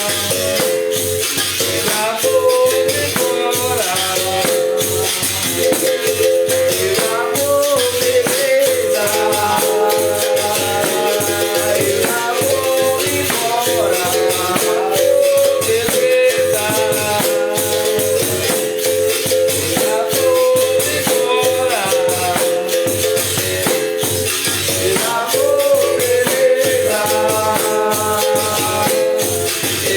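Capoeira music: a bamboo berimbau is played in a continuous rhythm, its pitched notes shifting as the coin presses the wire, with a caxixi basket rattle shaking along on each stroke.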